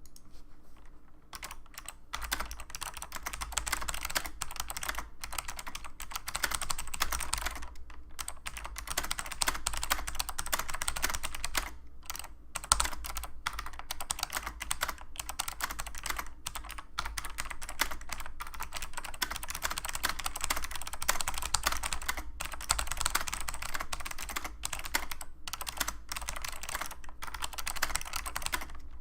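Continuous typing on a Monterey mTek K108 keyboard with SMK Monterey Blue switches: a dense stream of key clicks broken by brief pauses, over a low steady hum.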